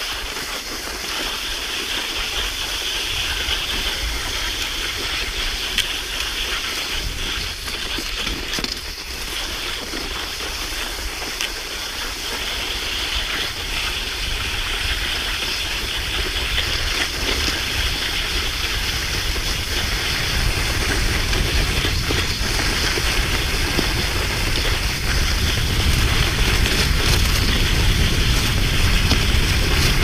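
Steady rush of wind on the microphone with the hiss of skis gliding on a snow track, growing louder toward the end as speed builds.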